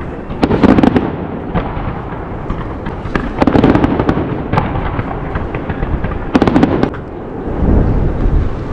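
Aerial fireworks shells bursting: three clusters of sharp crackling bangs about three seconds apart, with deep rolling booms near the end.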